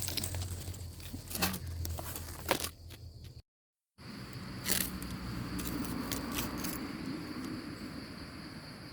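Scattered crunching and crackling of dry forest-floor leaves and twigs being handled or stepped on. After a brief cut, a steady high insect drone continues under a few more crackles.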